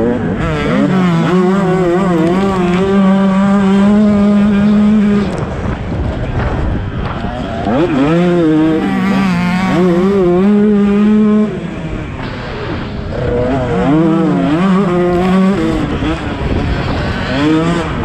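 Motocross bike engine heard from on board, pulling hard at high revs in three bursts of throttle, about five, four and two seconds long, with the revs dropping away between them as the throttle is shut, and climbing again near the end. A steady rush of wind runs under it.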